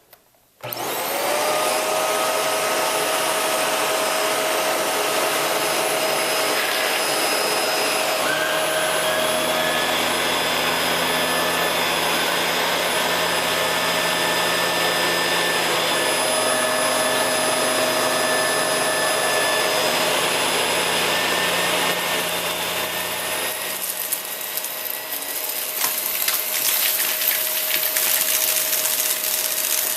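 Shark Rotator Lift-Away vacuum switched on about half a second in and running with a steady whine. In the last several seconds it crackles and rattles as it sucks up a pile of dry debris such as beans, rice and styrofoam.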